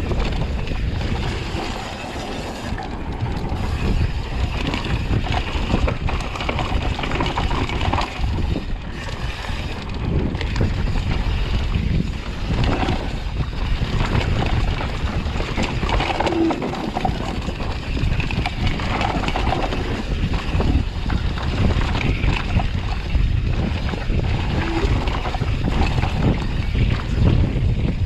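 Mountain bike riding down a rough bikepark trail: wind buffeting the microphone over a constant clatter of knocks and rattles from the bike and tyres on the ground.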